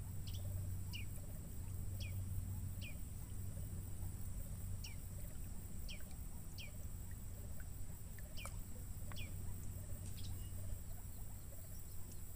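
A bird calling over and over, faintly: short high notes that slide downward, about one a second, some in quick pairs. A low steady hum runs underneath.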